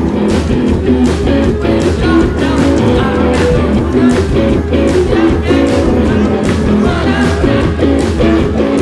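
A rock band playing live and loud: electric guitars over a drum kit.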